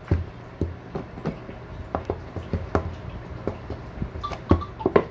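Plastic shrink-wrap crinkling and crackling in irregular snaps as it is pulled off a cardboard smartphone box, with a few soft knocks of the box being handled on a glass counter.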